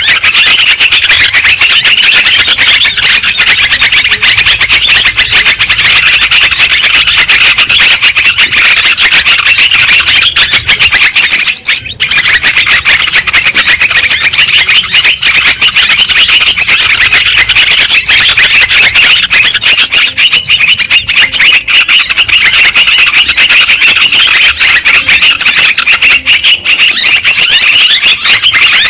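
Bird-trapping lure recording of trucukan (yellow-vented bulbul) calls: a loud, dense, unbroken chatter of many birds at once, with a short break about twelve seconds in.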